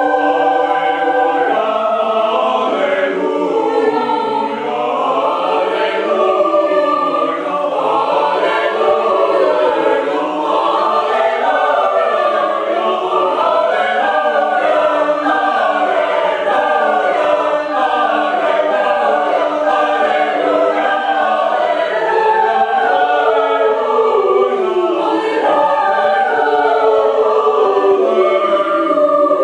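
Concert choir singing, many voices moving together through changing chords.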